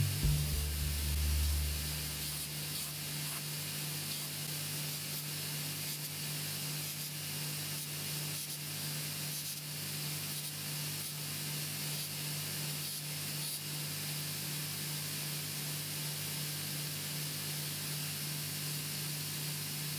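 A belt grinder's motor spinning down over the first two seconds. Then a steady hiss over a low hum as the small stainless steel hammer head is rubbed and handled by hand.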